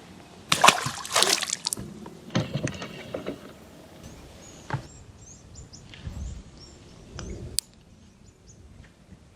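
Water splashing and sloshing, loudest in the first two seconds and again a little later, then a few small clicks and lighter sloshing.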